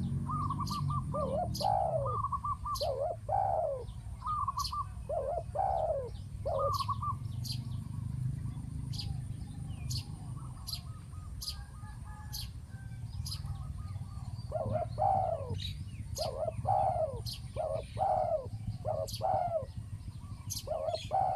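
Spotted doves cooing in repeated phrases, in two runs separated by a pause of several seconds. Short quick trilling notes and evenly spaced high chirps from other birds run alongside.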